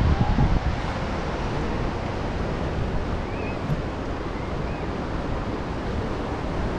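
Steady wash of sea waves under the pier mixed with wind, with gusts buffeting the microphone during the first half second.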